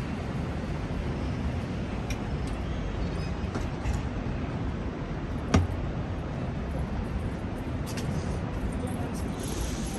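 City street ambience: a steady low rumble of traffic. A sharp knock sounds about halfway through, with a few fainter clicks around it and a brief hiss near the end.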